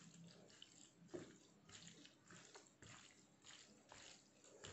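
Faint wet squishing of a hand mixing cooked rice with sambar on a steel plate, in soft irregular strokes with a light tap about a second in.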